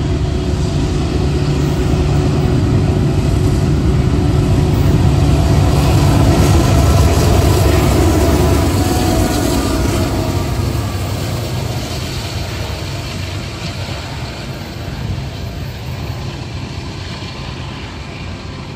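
CSX freight train's diesel locomotives passing close, the low engine noise building to its loudest about seven seconds in, then easing off as the train's cars roll past.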